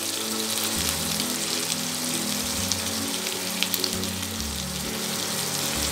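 Chicken pieces frying in spiced gravy, a steady sizzle with small crackles, under soft background music.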